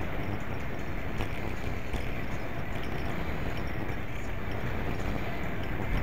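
Wind rushing over a bicycle-mounted action camera's microphone while riding, with steady tyre rumble on the paved path and a few faint rattles from the bike.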